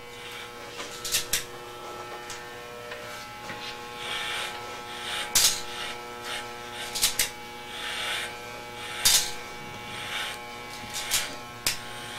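Corded electric hair clippers running with a steady buzz as they cut close-cropped hair at the back of the head, with a handful of short, sharp clicks scattered through.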